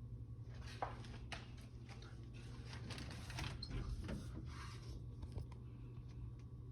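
Irregular knocks and clicks from a condo ceiling, mixed with a scraping, rustling sound, over a steady low hum. The cause of the ceiling noises is unknown to the owner.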